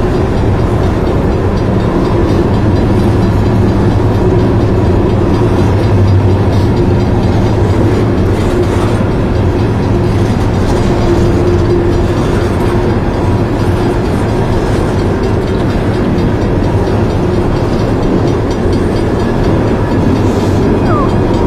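CSX coal train's hopper cars rolling past, a steady loud rumble of steel wheels on rail with a thin steady whine. A short rising squeal comes near the end.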